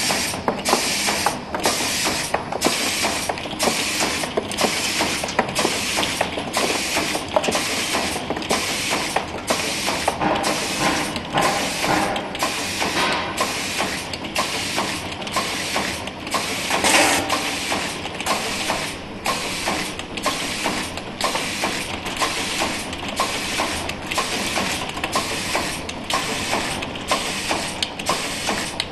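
Cap liner inserting machine running, pressing paper or rubber liners into bottle caps: a steady mechanical clatter with a regular cycle of about three beats every two seconds.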